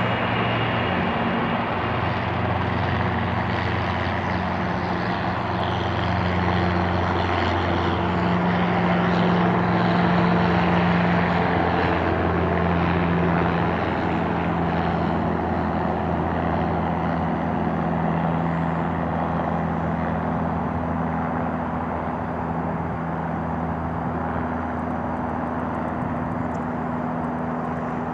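Boeing 787-8 jetliner's twin turbofan engines running at taxi power: a steady jet whine and rumble, growing a little louder about a third of the way in and then easing as the aircraft turns away.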